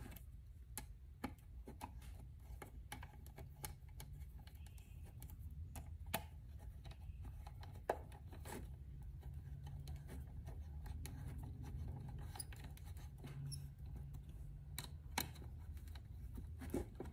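Faint, scattered small clicks and taps as short metal bolts and nuts are fitted by hand into a clear acrylic enclosure, over a low steady hum.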